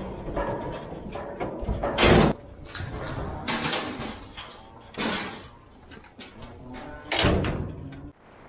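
Loud metal bangs and clatters from cattle being loaded into an aluminium livestock trailer and its rear gate being swung shut. There are four big crashes, about two, three and a half, five and seven seconds in, with lighter knocks in between.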